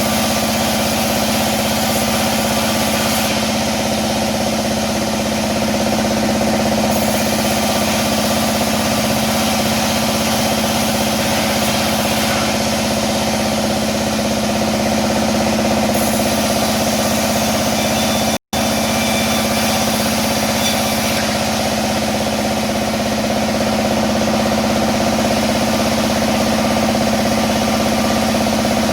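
Sawmill band saw running steadily with a constant hum. It cuts out for an instant about two-thirds of the way in.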